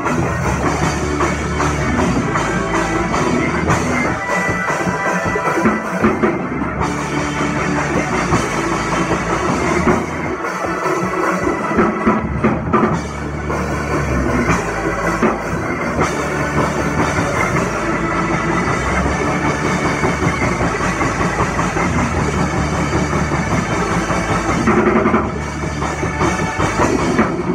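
Old-school gospel church music: an organist playing fast, dense chords on a two-manual electric organ, with a drum kit keeping a steady beat.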